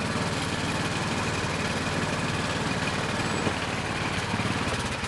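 Small engine of an amusement-park antique ride car running steadily as the car is driven, a rapid, even putter heard from the seat.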